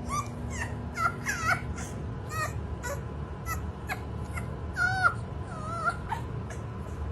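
Bulldog puppy whimpering: a string of short, high whines that bend up and down in pitch, loudest about a second in and again about five seconds in.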